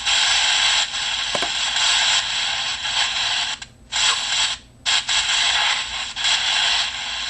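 Loud steady white-noise hiss from an app, which cuts out briefly twice around the middle.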